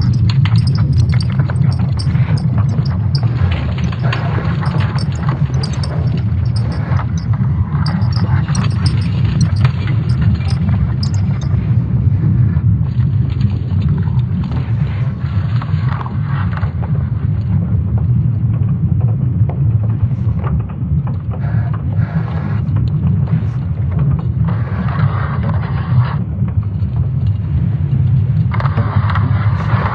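A steady, loud low rumble throughout, with stretches of fainter hiss rising and falling over it.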